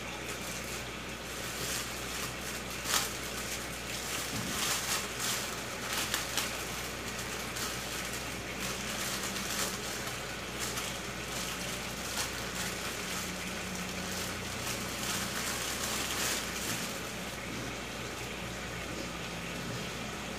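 Thick tomato chutney with melted palm jaggery bubbling in a kadai over a gas flame: scattered small pops and spatters over a steady hiss, busiest in the first third.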